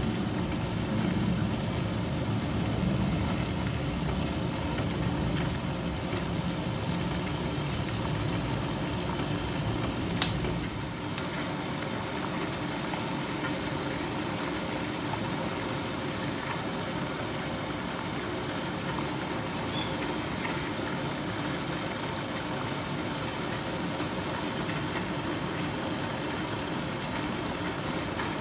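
Steady rushing and low hum of a steamer pot of water kept at the boil over a stove flame while fish steams. A single sharp click about ten seconds in.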